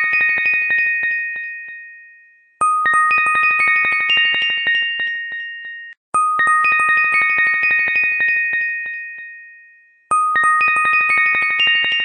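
A short chime jingle played over and over: each time, a quick run of bright bell-like notes rings out and fades, repeating about every four seconds.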